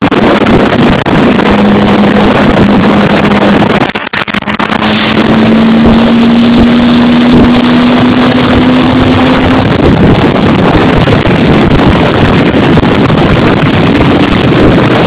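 Loud wind rush on the microphone at highway speed, over a vehicle engine's steady drone that slowly rises in pitch for several seconds. The level drops briefly about four seconds in.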